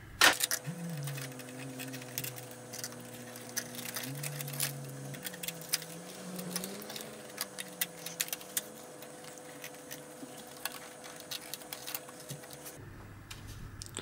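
Irregular small clicks and rattles of braided SAS cables being handled, bent and tucked against the metal chassis and parts of a rack server, with faint wavering tones underneath.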